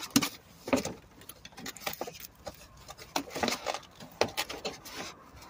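Cardboard box and packaging of an air-fryer lid set being rummaged through: irregular crinkles, scrapes and light knocks.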